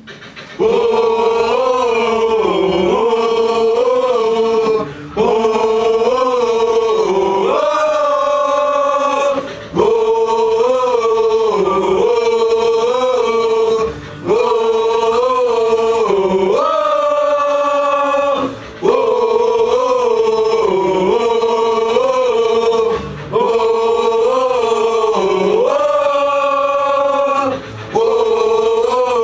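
Several young men singing a pop-punk gang-vocal chant in unison, with no instruments. One short phrase of about four seconds is repeated over and over, with a quick breath between each line.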